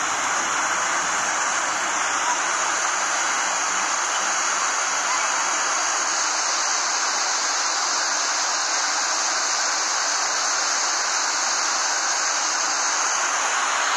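Waterfall rushing: water pouring over a rock cliff gives a steady, dense rushing noise that holds the same level throughout.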